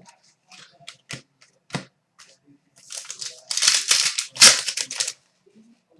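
Trading cards being handled with light clicks and taps, then a loud crinkling of a trading-card pack wrapper lasting about two seconds, starting about three seconds in.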